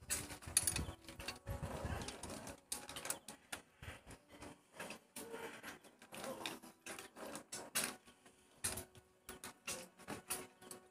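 Hand tools clicking and tapping irregularly against metal parts at the cylinder head of a Yamaha Mio Sporty scooter engine during a tune-up.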